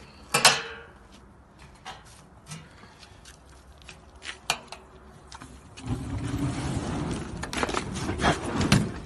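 A sharp metal clank from the jerrycan near the start is the loudest sound. About six seconds in, fuel poured onto the hot embers of a barbecue grill catches with a whoosh, and the spreading fire then burns with a steady rushing noise.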